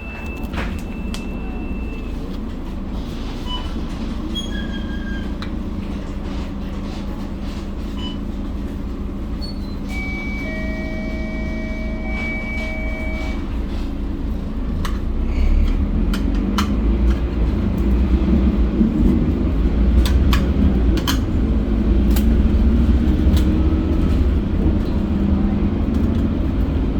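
Mercedes-Benz OC500LE bus's diesel engine running, with frequent short rattles and clicks, and the engine grows louder about fifteen seconds in. About ten seconds in, a steady two-pitch electronic tone sounds for about three seconds.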